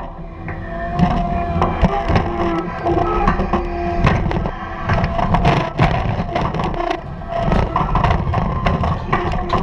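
A diesel log loader running with a wavering hydraulic whine as the grapple works, with repeated knocks and cracks of logs being gripped and handled.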